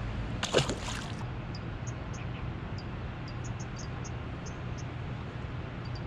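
A small river fish dropped back into the water with a brief splash. Afterwards a steady outdoor hush, with short high chirps scattered through it.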